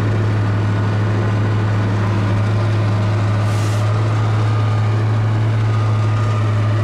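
Ural truck's engine running steadily under load, heard from inside the cab as the truck fords a fast river, with water rushing around it. A short burst of hiss comes about halfway through.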